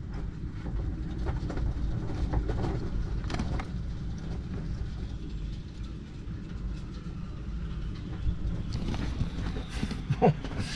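Storm wind of about 30 knots buffeting a steel sailboat, heard from inside the cabin as a steady low rumble with a few light knocks.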